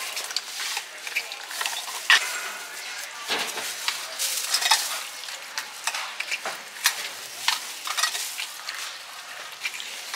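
Hand-lever metal citrus press squeezing orange halves, with juice squirting and splattering into a plastic jug. Irregular sharp clicks and clinks from the press are heard throughout.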